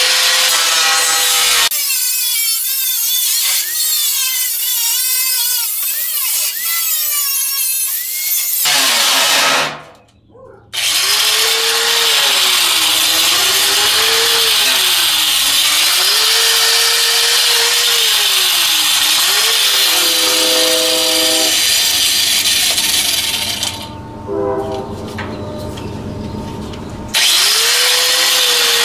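Harbor Freight angle grinder running under load, its motor pitch dipping and rising as it is pressed into the work. The sound stops for about a second roughly ten seconds in, then starts again, and is quieter for a few seconds near the end.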